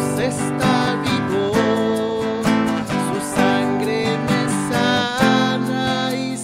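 Music from a worship song: an instrumental passage with strummed acoustic guitar and a steady beat.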